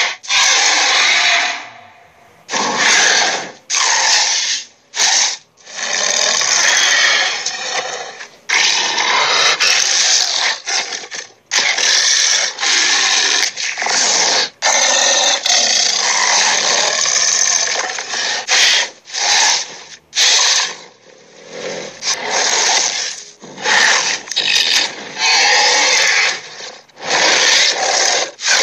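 A cartoon Minotaur's growls and roars: a string of rough, hoarse bursts, most a second or two long, with short breaks between them.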